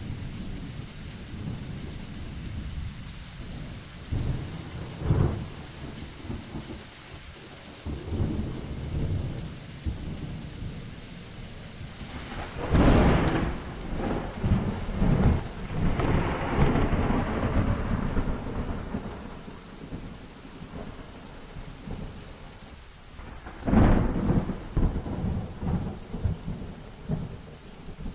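Thunderstorm: steady rain under continuous low rumbling thunder. Two loud sudden thunderclaps break in, one about halfway through and one again near the end, each followed by rolling rumbles.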